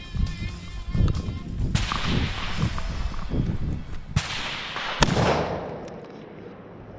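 Rifle shots: a few sudden loud cracks, the sharpest about five seconds in with a trailing echo, over background music.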